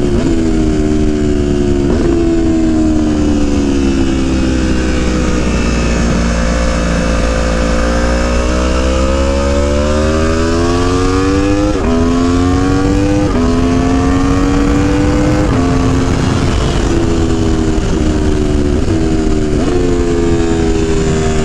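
Aprilia Tuono V4 1100's V4 engine heard on board at track speed, its revs rising and falling through the gears: the pitch steps down sharply at each upshift and jumps up in quick steps on the downshifts into corners. A heavy steady rush of wind sits under it.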